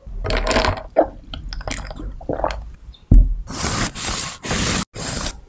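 Large kitchen knife sawing through a raisin loaf cake on a wooden cutting board: a thump on the board, then several long scraping strokes of the blade. Shorter knocks and rustles come before it.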